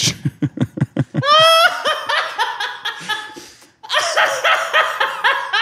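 Hearty male laughter: a quick run of short breathy laugh pulses, then high-pitched wavering laughter, a brief pause just under four seconds in, and another stretch of laughter.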